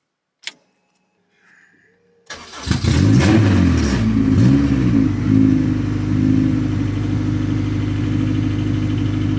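Swapped-in Honda K24 inline-four in a Toyota MR2 Spyder starting up, heard from inside the cabin. It cranks briefly about two seconds in and catches at once. The revs rise and fall a few times, then it settles into a steady idle.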